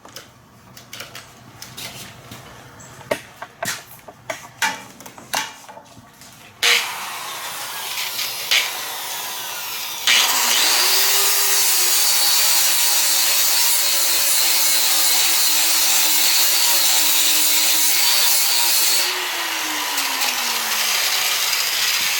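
A few seconds of scattered clicks and knocks, then a flap disc on a power grinder abrading a steel bar down to bright metal, a steady grinding noise with a motor hum that drops in pitch near the end.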